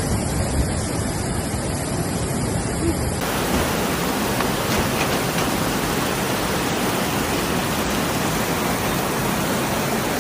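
Steady rushing of floodwater. The sound changes abruptly about three seconds in, becoming fuller and brighter.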